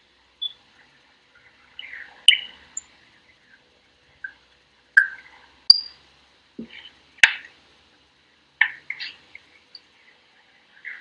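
Scattered short chirps and a few sharp clicks, spaced irregularly, with quiet between them.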